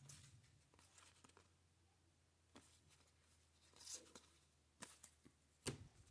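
Faint swishes and soft clicks of glossy trading cards being flipped through by hand, with a few louder slides about four and six seconds in; otherwise near silence.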